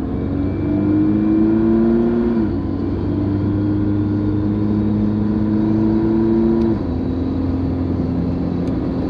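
Mitsubishi Pajero NS/NT short-wheelbase turbodiesel with a 3-inch stainless steel exhaust and resonator, heard from inside the cabin while accelerating on the road. The engine note climbs steadily, then drops at each upshift, about two and a half seconds in and again near seven seconds, as the vehicle works up towards 100 km/h.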